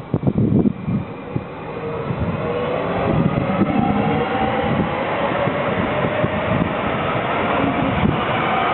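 Stadler FLIRT electric multiple unit running past close by: a rumble of wheels on rail with a faint electric whine from the traction motors, growing steadily louder. Wind buffets the microphone in the first second.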